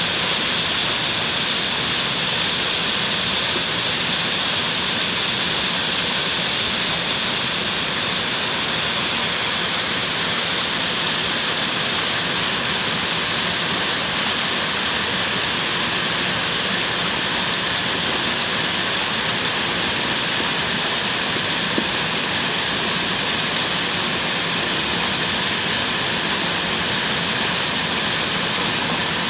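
Steady heavy rain falling, a continuous even hiss with no single drops standing out.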